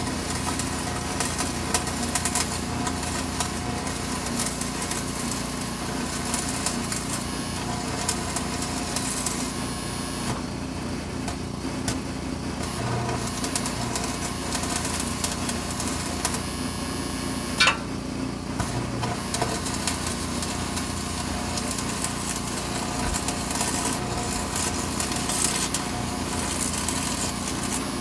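Electric arc welding inside steel square tubing: a continuous arc crackle and sizzle that breaks off briefly about ten seconds in and again around eighteen seconds. A steady engine-like hum runs beneath it.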